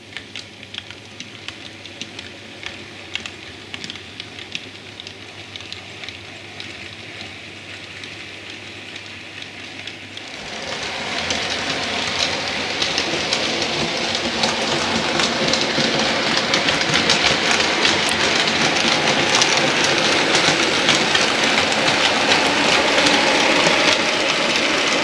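Model railway train running on the track, its wheels clicking over the rail joints: faint at first, then from about ten seconds in a louder, denser rattle as a goods train behind a model steam locomotive runs past close by.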